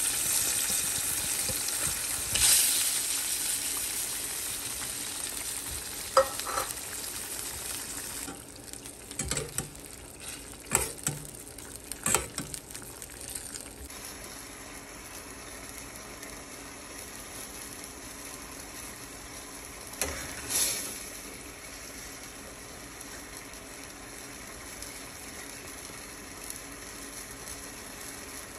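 Tomato and onion sauce with fish sizzling in a stainless steel pan, loudest at first and slowly fading. About a third of the way through, a metal spoon clinks and scrapes against the pan several times. After that there is a quieter steady hiss with a couple of soft knocks.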